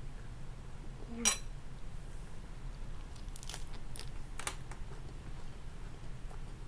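A metal spoon clinks once against a ceramic bowl about a second in, then a few crisp crunches from biting into a fresh lettuce-leaf wrap around three to four seconds in, over a steady low hum.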